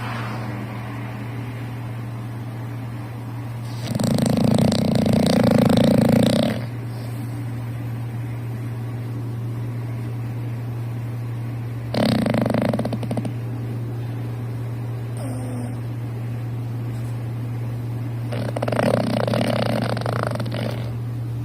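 English bulldog snoring very loud in its sleep: three snores about seven seconds apart, the first and longest about four seconds in, over a steady low hum.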